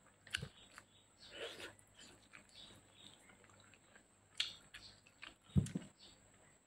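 Close mouth sounds of eating grilled chicken by hand: scattered wet smacks and clicks of chewing and sucking at the meat, with a short low burst near the end.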